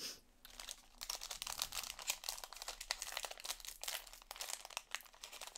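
Foil wrapper of a Panini Prizm basketball card pack being torn open and crinkled in the hands: a steady run of fine, irregular crackles.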